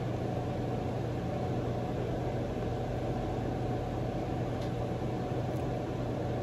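Steady low hum and hiss of background room noise, unchanging throughout, with no distinct sounds.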